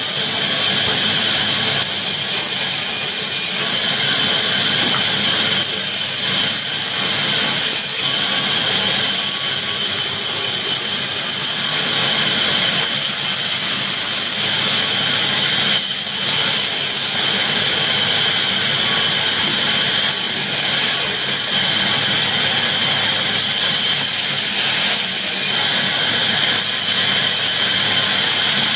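Sawmill band saw running steadily, its blade cutting lengthwise through a log fed by hand. A loud, even, high-pitched noise with a steady shrill whine.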